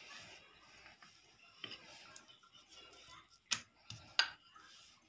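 Parotta dough being rolled out and pressed on a stone slab with a wooden rolling pin and hands: faint rubbing, with a few sharp knocks on the slab, the loudest two close together about three and a half and four seconds in.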